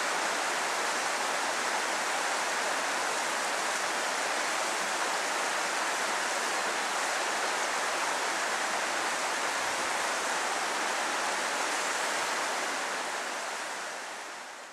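Shallow rocky stream running fast over stones: a steady rush of whitewater that fades out near the end.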